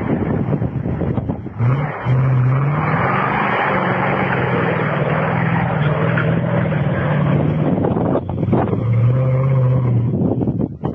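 Land Rover Defender 90's engine pulling under load up a steep grassy slope. The revs rise about two seconds in and hold steady, ease off briefly around eight seconds, then pick up again.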